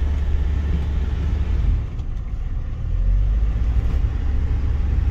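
Steady low rumble of a heavy 3.2-tonne camper van's engine and road noise, heard from inside the cab as it climbs a steep mountain pass road. It dips briefly about two seconds in, then picks back up.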